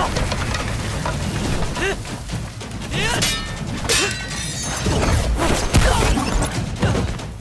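Fight sound effects from an animated martial-arts battle: a dense run of hits, crashes and swishes, one after another, with a brief dip about two and a half seconds in.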